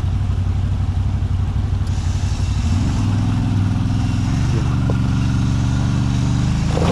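ATV engine running at low revs under light throttle while the quad is winched up a steep muddy slope; the engine note picks up and grows stronger about three seconds in, then holds steady.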